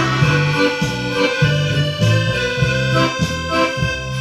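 Instrumental background music: held chords over a bass line that changes note about twice a second.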